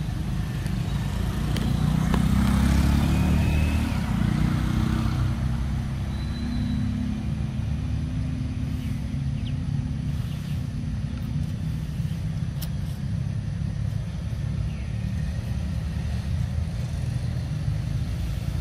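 Road traffic: a motor vehicle engine passing, loudest about two to four seconds in, over a steady low rumble.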